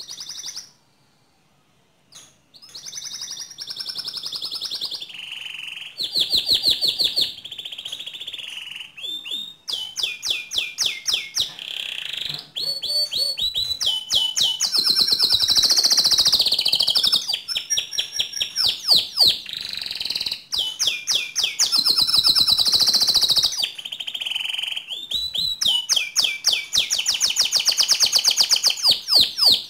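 Domestic canary singing a long, continuous song of fast trills and rolls, switching from one rapid repeated-note phrase to the next, after a brief pause near the start.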